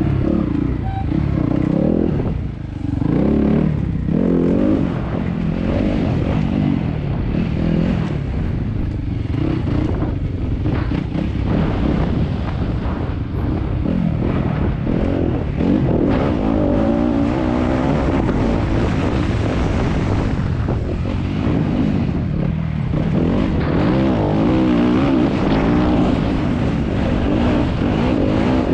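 Enduro motorcycle engine running hard over a rough dirt trail. Its pitch repeatedly climbs and drops as the rider works the throttle and gears.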